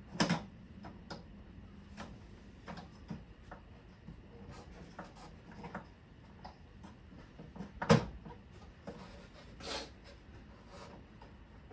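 Plastic parts of a Geberit concealed cistern's flush mechanism being handled and fitted through the service opening: scattered light clicks and rubbing, with a few sharper knocks, the loudest about eight seconds in.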